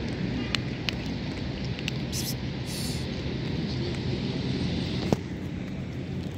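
Steady low outdoor rumble, with a few sharp clicks and short crinkles as a cat eats dry kibble off a plastic bag.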